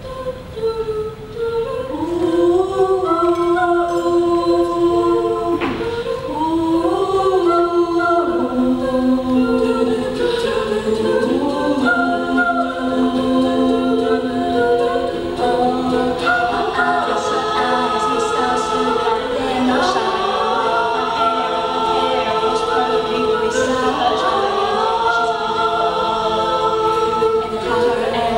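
Small mixed-voice a cappella choir singing unaccompanied in close harmony, with long held chords that change from note to note. The sound grows fuller about two seconds in as the lower voices come in.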